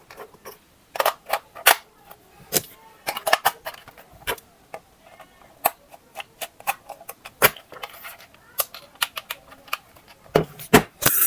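Irregular sharp clicks, taps and crinkles of plastic packaging and toy parts being handled as a toy is unboxed, with a louder crackling cluster near the end.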